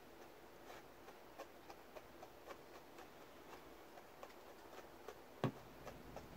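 A grooming brush drawn in short strokes through an Angora rabbit's wool, making faint light ticks about two or three a second, with one sharper click about five and a half seconds in.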